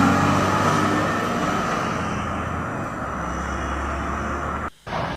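Lorry engine and road noise, a steady low engine hum that fades gradually; the sound cuts out abruptly for a moment near the end.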